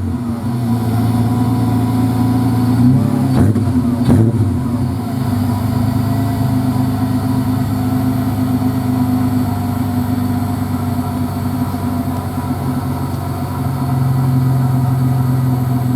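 A 1990 VN Commodore's 3.8-litre V6 idling through a 2.5-inch Redback sports exhaust, with two short throttle blips about three and four seconds in, then settling back to a steady idle.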